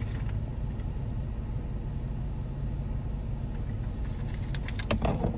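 Jeep Wrangler JKU engine idling with the air conditioning running, a steady low rumble heard inside the cabin. A few light clicks come near the end.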